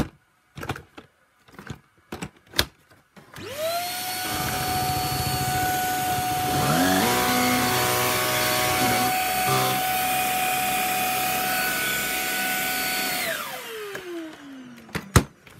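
Shark Rocket stick vacuum running with its power nozzle attached. A few sharp clicks as the nozzle is handled, then the motor starts with a steady high whine; partway through a second, lower hum rises in pitch, and after about ten seconds the vacuum is switched off and the whine falls away, followed by one sharp click.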